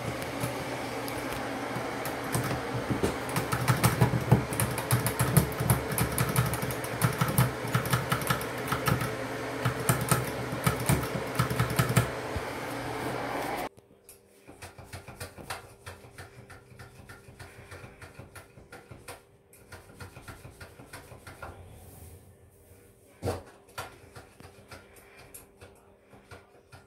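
Handling noise from a phone held in the hand: rapid clicks and rubbing over a steady machine-like hum. About halfway through it drops abruptly to a much fainter hum with scattered clicks.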